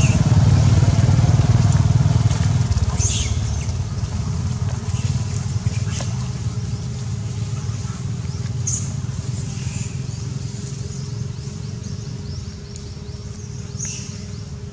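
Low rumble of a motor vehicle engine, loud at first and fading steadily, with a faint steady hum under it. A few short, light crackles sound on top.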